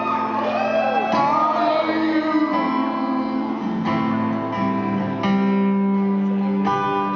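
A male voice sings a wavering, held melody over a strummed acoustic guitar. About three seconds in the singing stops and the guitar goes on alone, with a few ringing strummed chords.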